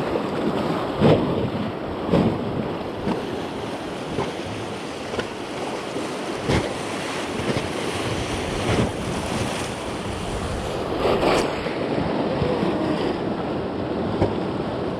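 Rushing river water around a raft, with wind buffeting the microphone and a few louder splashes.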